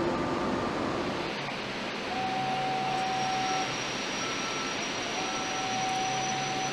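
Steady shipyard machinery noise with a low hum, broken by a repeating warning alarm: a long steady tone of about a second and a half, sounding twice about three seconds apart, with shorter higher beeps in between.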